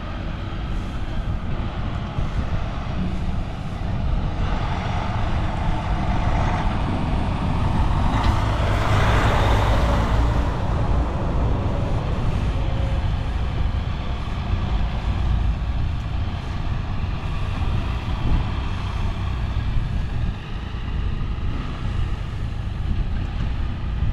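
Engines of three-wheeled motorcycles running at low speed just ahead, mixed with wind and road noise. The sound is steady and swells around eight to ten seconds in.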